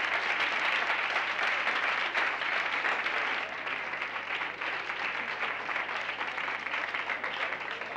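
An audience clapping, a dense steady patter of many hands that eases off a little after about three and a half seconds.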